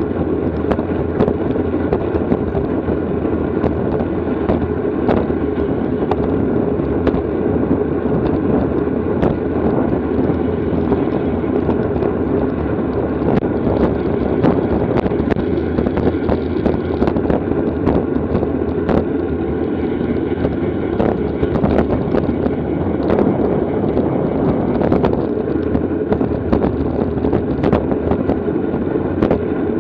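Wind buffeting the microphone of a camera riding on a bicycle at race speed, a steady rush with many scattered clicks and knocks.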